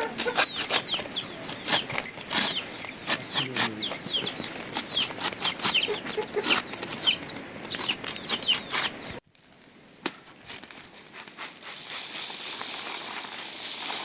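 Chicks peeping over and over, short falling cheeps mixed with many sharp clicks and taps. About nine seconds in the sound cuts off, and a few seconds later a steady hiss of rain rises.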